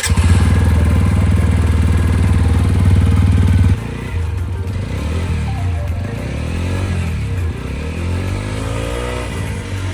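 TVS Apache RTR's single-cylinder motorcycle engine revved hard at full throttle for about the first four seconds, then dropping back and revved up and down repeatedly. The revving spins the freshly lubricated chain to throw off excess oil after a deep clean.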